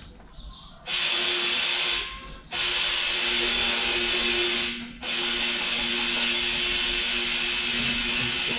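Compressed air hissing through a tyre inflator with a pressure gauge into a tractor tyre, in three long bursts with short breaks between, with a steady whistle-like tone under the hiss.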